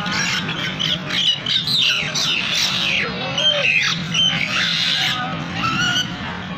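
Mynas giving rapid, harsh chattering and squawking calls, many short calls in quick succession that thin out near the end, over background music.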